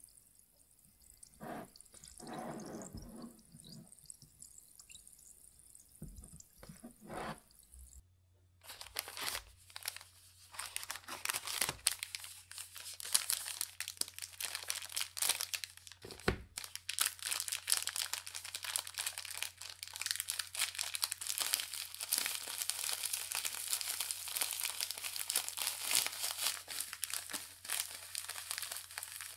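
Faint fizzing of carbonated cider with a few soft knocks for the first several seconds. Then, after a cut about 8 seconds in, continuous crinkling and crunching as hands squeeze digestive biscuits inside their paper wrapper packets, crushing them for a cheesecake base.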